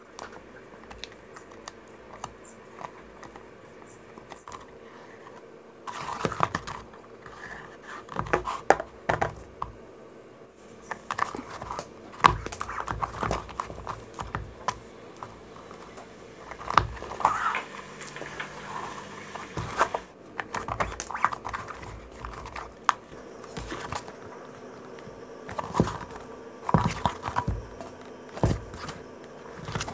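Leather and hand tools being handled at a workbench: irregular clicks, taps, scrapes and rustles that begin about six seconds in and come and go in clusters.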